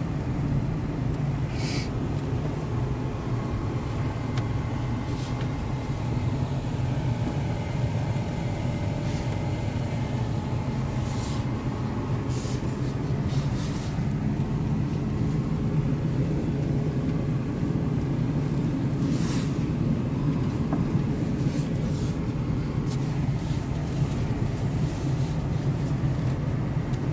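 Pickup truck driving along a snowy two-track, heard from inside the cab: a steady low engine and tyre rumble, with a few short knocks and rattles scattered through it.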